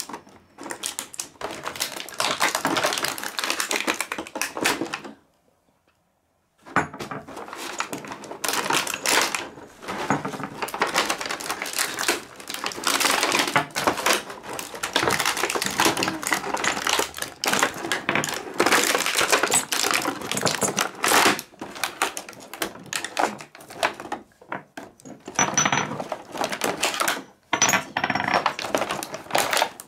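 Stiff clear plastic blister packaging crackling and clicking rapidly as small porcelain toy tea-set pieces are worked out of it, with now and then a light clink of ceramic. The crackling stops for a second or so about five seconds in.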